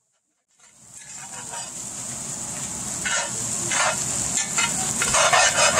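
Fried rice sizzling in a hot frying pan, with a spatula scraping and stirring it in repeated strokes. The sizzle starts about half a second in and grows louder.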